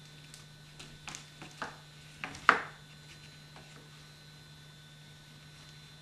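A kamishibai card being slid out of its wooden butai frame: a run of light scrapes and rubs with one sharper knock about two and a half seconds in. A steady low hum lies underneath.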